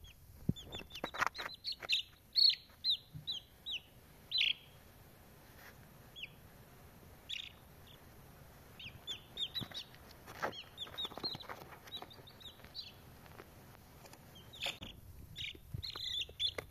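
Baby chicks peeping: short, high, falling chirps coming in quick clusters, with a few sharp clicks among them.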